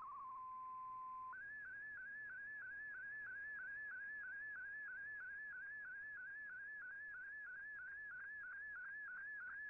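Shortwave digital-mode broadcast audio: the last of a fast-changing MFSK data burst stops, a single steady tone holds for about a second, then the image signal of a picture transmission (323×200 picture) starts, a warbling tone that rises and falls in even arcs about three times a second.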